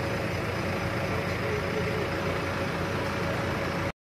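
Vehicle engines idling steadily with a steady hum over them. The sound cuts off abruptly just before the end.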